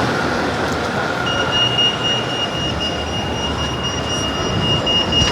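Busy city-street traffic noise, with a steady high-pitched whine or squeal coming in about a second in and holding on.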